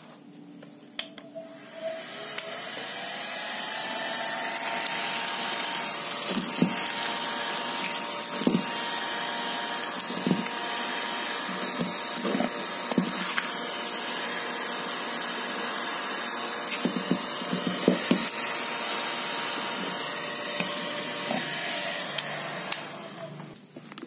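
Hot-air blower running: its motor whine rises as it spins up about two seconds in, holds steady with a strong airy hiss, and cuts off near the end. Short crinkles and knocks of plastic film and a jar being handled come through it, typical of heat-shrinking a polythene wrap around a plastic bird-food jar.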